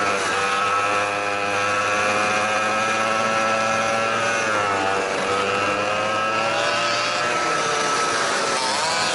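Kart's 100cc two-stroke engine running at high revs under the onboard camera, its pitch dropping briefly as the driver lifts for corners about halfway through and again near the end, then climbing back.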